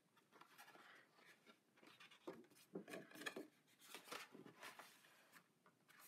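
Faint rustling and soft taps of paper pages and a book cover being handled as a large, thick book is closed.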